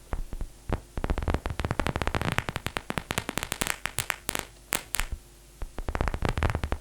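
Synthesized paper-crumpling sound from a Vital soft-synth patch: rapid runs of sharp clicks and crackles, played back several times with short pauses between runs.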